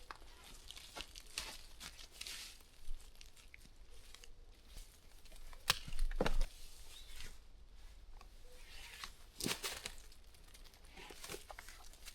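Rustling and crackling of dry leaves, grass and twigs being handled and trodden on while a campsite is cleared, with two louder cracks, about six and nine and a half seconds in.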